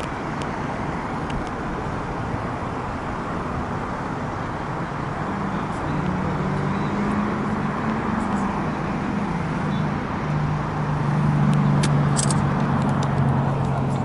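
Road traffic: a steady rush of cars. A low engine hum comes in about six seconds in, and a few light clicks sound near the end.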